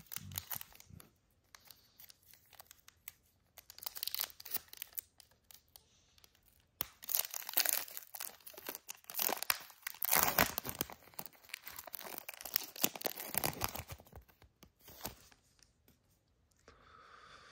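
Trading card pack wrapper being torn open and crinkled by hand, in uneven bursts of ripping and crackling that are busiest in the middle stretch.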